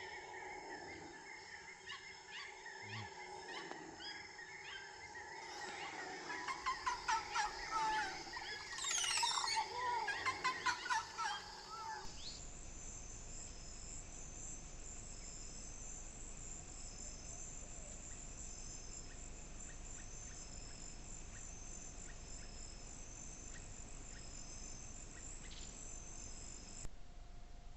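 Rainforest wildlife sounds: a dense chorus of bird calls and insects, with a loud run of rapid repeated calls from about six to eleven seconds in. From about twelve seconds in it changes abruptly to a quieter, steady high insect buzz with evenly pulsed notes.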